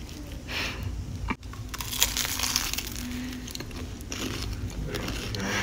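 A person biting and chewing a crunchy snack close to the microphone, a series of short crunches.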